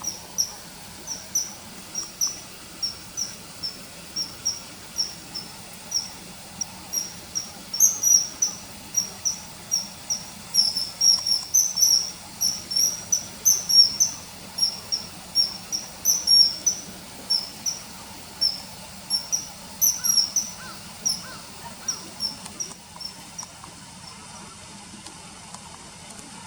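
Common kingfisher calling: repeated high, thin, downward-slurred whistles, several a second in irregular runs, thinning out over the last few seconds.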